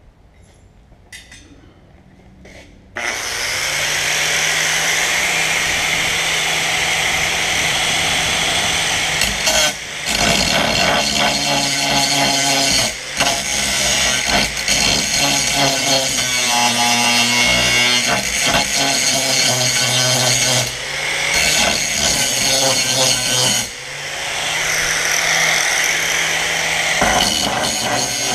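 Handheld angle grinder grinding a rough torch-cut edge off steel plate, starting about three seconds in after a few light clicks. The grinding stays loud and steady, dropping briefly a few times.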